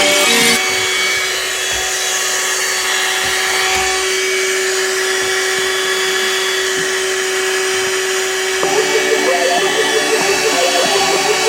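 Vacuum cleaner running steadily with a constant hum as it vacuums out a vent.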